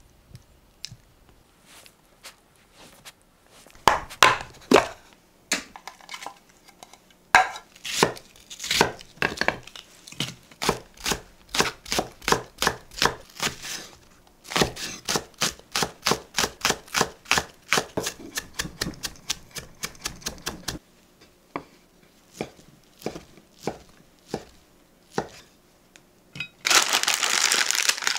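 Knife chopping food on a cutting board in runs of sharp strokes, steadiest through the middle at about four cuts a second, with sparser cuts before and after. Near the end comes a brief loud crinkling rustle.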